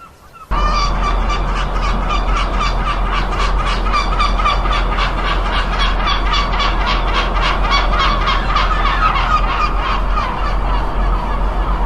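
A large flock of gulls calling all at once, a dense continuous clamour of overlapping rapid cries that starts abruptly about half a second in.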